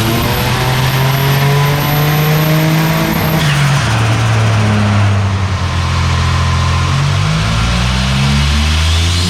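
Turbocharged Holden VY Commodore 3.8-litre V6 revving up under load on a chassis dyno, with a high whistle climbing alongside the engine note. About three and a half seconds in the revs fall away sharply, hold lower, then climb again near the end. The engine is running down on boost from a boost leak that could not be found.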